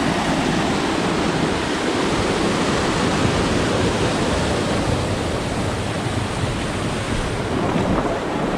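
Waterfall running close by: a loud, steady rush of falling water.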